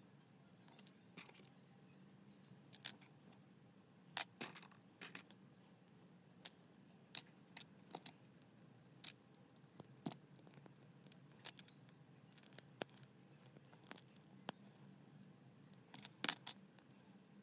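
LEGO bricks being handled and pressed together on a baseplate: irregular sharp plastic clicks and snaps, a couple of dozen spread out, with a quick cluster of several near the end.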